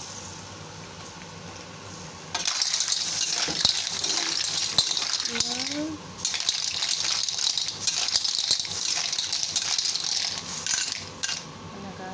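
Clams sizzling loudly in a hot stainless steel wok. The sizzle jumps up about two seconds in as Shaoxing wine hits the pan. Shells clink and clatter against each other and the wok as they are stirred, and the sizzle dies down near the end.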